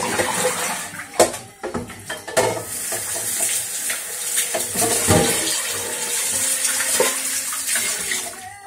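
Kitchen tap running into the sink while a pan is rinsed under it, with a few sharp knocks of the pan against the sink; the water stops near the end.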